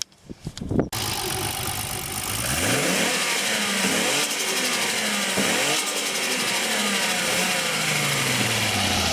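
Single-turbo RB26DET straight-six in an R32 Skyline GT-R driven hard: the engine note rises in three short pulls, then falls away in one long slide as the throttle is lifted. With the blow-off valve's recirculation pipe blocked off, the turbo flutters on lift-off.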